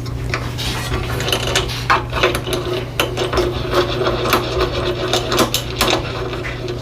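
Irregular small clicks and clatter of hand tools and metal parts being handled while a Craftsman 6-inch benchtop jointer is put together, over a steady low hum.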